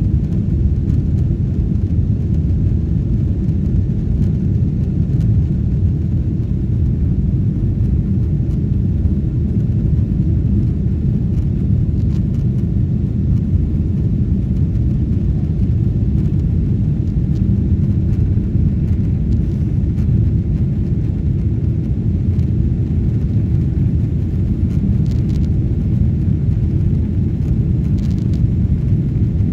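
Steady low rumble of an airliner's cabin in flight: engine and airflow noise heard from inside the passenger cabin.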